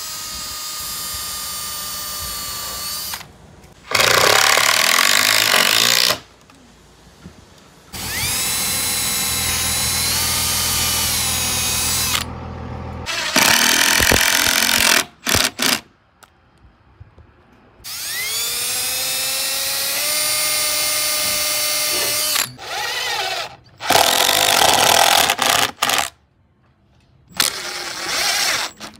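Cordless drill-driver turning screws into the wooden nameboard in a series of bursts a few seconds long, its motor whining up to speed at the start of several runs, with short pauses between.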